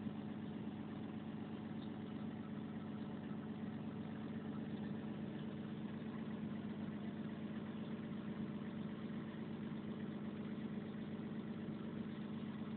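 Volvo 360's diesel engine running steadily at idle, an even low hum with no revving.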